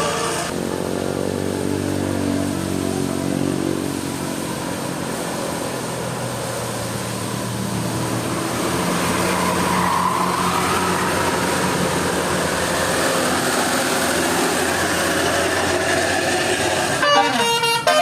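A bus's diesel engine running under load as it climbs the hill, with the engine's pitch shifting in the first few seconds. Near the end a multi-tone telolet horn starts playing a rapid tune.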